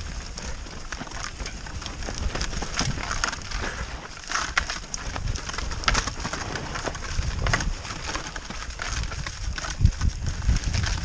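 Mountain bike descending a muddy, rooty trail at speed: tyres rumbling over the dirt, with frequent sharp rattles and knocks from the bike as it hits roots and bumps.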